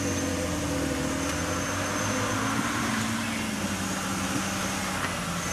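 Custom Land Rover Discovery's 4.2-litre V8 with a straight-through exhaust, running steadily at an even engine speed.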